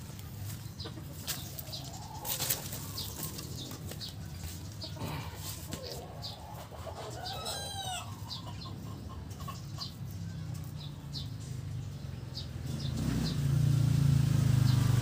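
Backyard chickens clucking, with scattered short chirps and ticks. Near the end a low motor engine drone rises and becomes the loudest sound.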